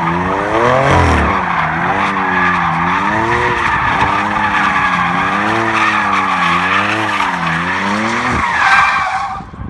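BMW M4 engine held high in the revs while the rear tyres spin and squeal through continuous donuts, burning rubber. The engine pitch rises and falls about once a second as the car circles, then the revs drop and the sound cuts off near the end.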